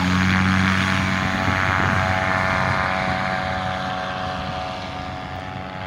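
Vittorazi Moster 185 two-stroke paramotor engine and propeller running at full power on a takeoff climb, a steady droning tone that grows fainter as the paramotor flies away.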